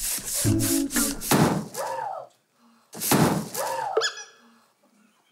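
Hand air pumps being worked to inflate plastic pool floats: quick pumping strokes, then two strong strokes of rushing air, each ending in a rising-then-falling squeak.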